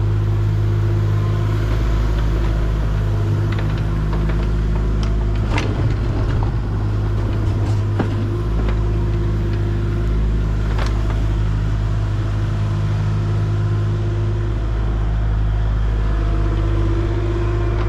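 Heavy equipment's engine running steadily with a low drone during backfilling, with a few sharp knocks and clanks scattered through.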